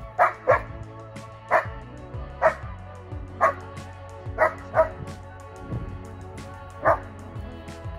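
German shepherds barking in excited play, about eight sharp barks at irregular intervals, two in quick succession at the start and the last a little before the end, over background music.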